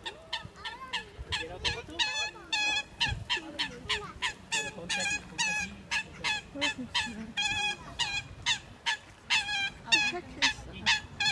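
Geese honking over and over in a rapid, steady series, about two or three honks a second.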